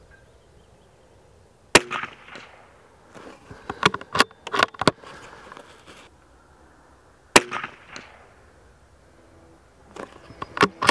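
Two shots from a RETAY Sporter .22 LR bolt-action rifle, about five and a half seconds apart, each a sharp crack with a short ringing tail. Between the shots, and again near the end, come runs of clicks from the bolt being worked to reload.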